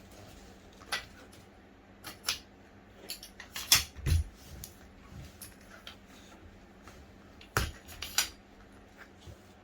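Scattered light clicks and knocks of small hard objects being handled, with louder knocks about four seconds in and again near the end, one of them with a low thud.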